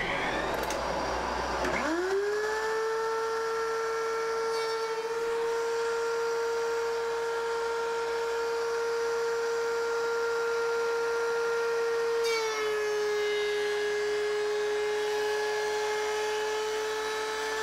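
DeWALT DW735 benchtop thickness planer starting up about two seconds in and running with a steady whine. About twelve seconds in the pitch drops a little as the motor takes the load of a 0.8 mm cut through a hardwood board. A dust collector runs underneath.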